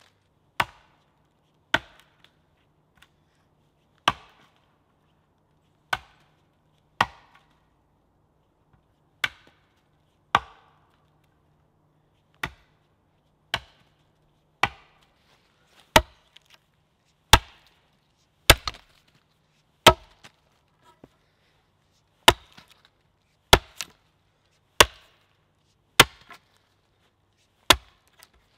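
Axe chopping into the end of a wooden pole resting on a chopping stump, cutting it to a taper with chips splitting off. The blows come steadily, about twenty of them, a little over a second apart.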